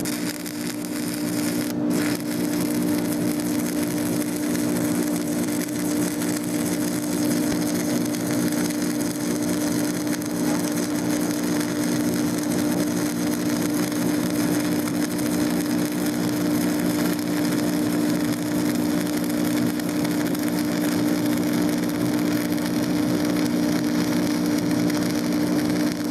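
Stick-welding arc from a Longevity Migweld 250 MP in stick mode, crackling and sputtering steadily as a rod burns along a bead, with a steady low hum underneath. It breaks for an instant about two seconds in.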